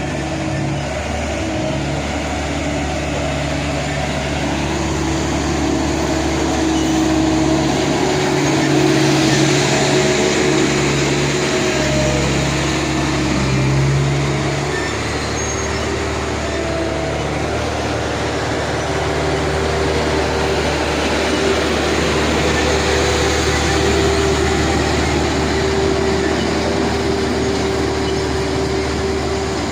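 Road roller's engine running steadily, its pitch shifting a little partway through.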